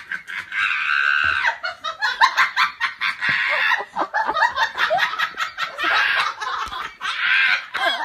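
A person laughing hard, in quick repeated bursts broken by longer high-pitched stretches.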